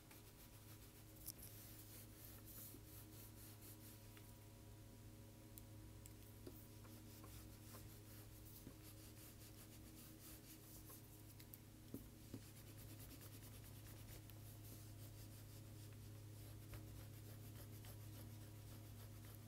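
Faint rubbing of a pink eraser on paper as pencil lines are erased, in many short strokes over a steady low hum, with a few light knocks.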